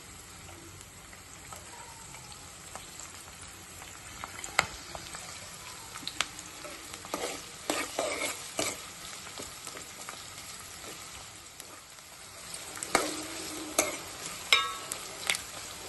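Sliced onions sizzling in hot oil in a pan, while a spatula stirs them with scattered clicks and scrapes against the pan, more of them near the middle and toward the end.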